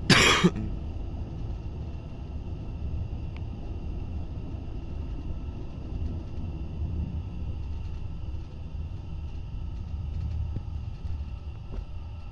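Steady low rumble of a Škoda EJ575 electric multiple unit on the move, heard from on board, with faint steady tones above the rumble. A short, loud, harsh noise comes right at the start.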